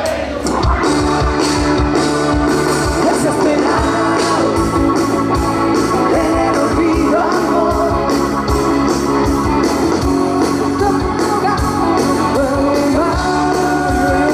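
Live rock band playing without words: a steady drum beat under electric guitar, with a melodic line bending in pitch over it.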